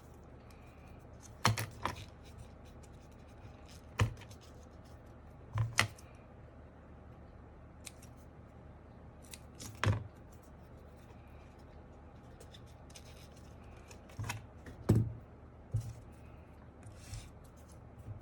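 Sharp clicks and snaps of hands working on a mechanical keyboard's parts during a foam mod, coming irregularly every one to four seconds, some in quick pairs.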